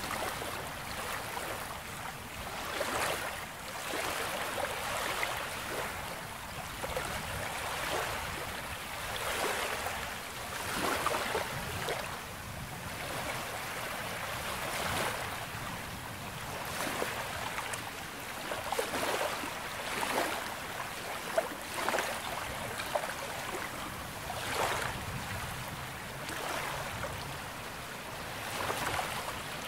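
Sea waves washing onto a beach shoreline, the wash swelling and fading in irregular surges every second or two. A brief sharp click stands out about two-thirds of the way through.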